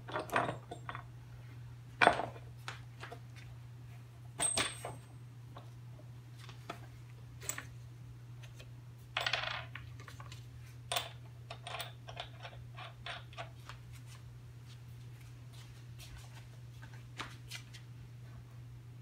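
Steel nuts and washers clinking as they are picked out of a metal tray and set on the threaded rods of a particleboard clamping fixture. There are a few heavier knocks in the first few seconds as the top board is lowered onto the rods, the loudest about two seconds in.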